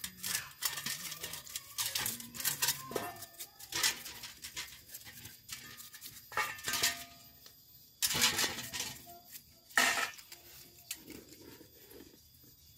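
Dirty motorcycle carburetor being scrubbed with a brush in a steel bowl of fuel: scraping and metal parts clicking against the bowl, with two louder scrubbing bursts a little past the middle.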